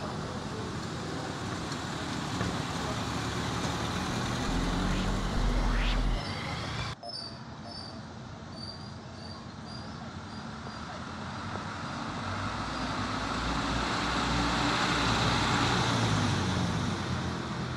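Street traffic with the engines of a motorcycle and a small truck running close by. A deep engine rumble swells about five seconds in, the sound changes abruptly around seven seconds, then the traffic noise builds to its loudest near the end.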